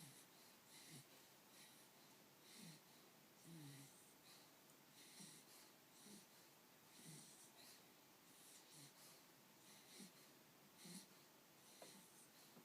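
Faint wheezy snoring breaths, a short squeaky breath about every second or so, each with a hiss of air.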